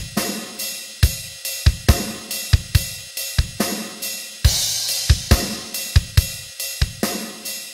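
Background music driven by a drum kit, with kick and snare hits in a steady beat and hi-hat on top; a cymbal crash comes about four and a half seconds in.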